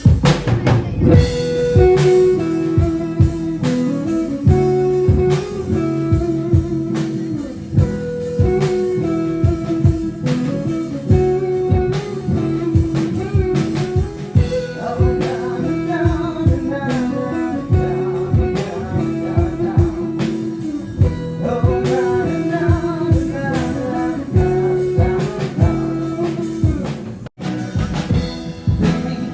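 Music with guitar and drum kit playing a steady beat.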